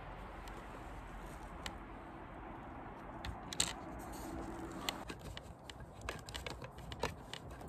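Faint scattered clicks and scrapes of a small hand screwdriver driving a mounting screw into a plastic floodlight fixture, more frequent in the second half.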